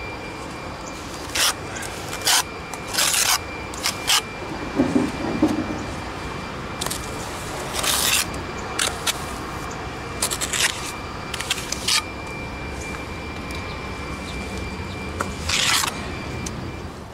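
Trowel spreading and pressing wet mortar onto a cinder-block and brick wall: a series of short, irregular scraping strokes.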